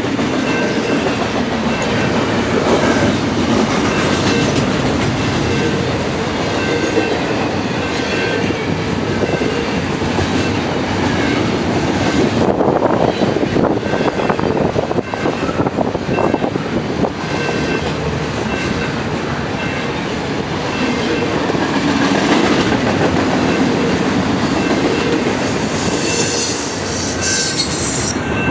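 Canadian Pacific double-stack container train rolling steadily past, a continuous loud rumble and rattle of wheels on rail, with faint high wheel squeal tones coming and going.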